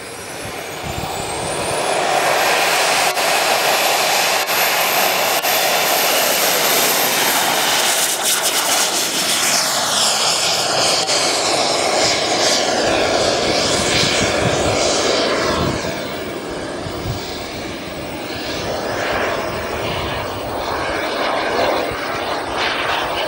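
Twin ATJ-170ti model jet turbines on a giant-scale RC MiG-25 spooling up to full power with a rising whine on the takeoff roll. They then run at full thrust through the climb-out, and the sound drops away about two-thirds through as the model flies off.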